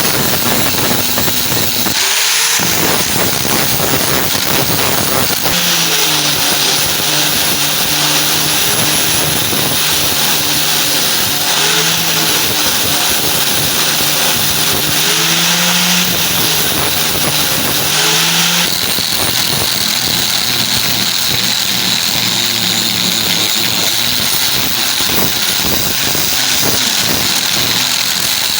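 Electric power grinding tool running against the steel blade, with a steady loud abrasive hiss. A lower motor hum comes in about a fifth of the way through and fades out about two-thirds of the way through.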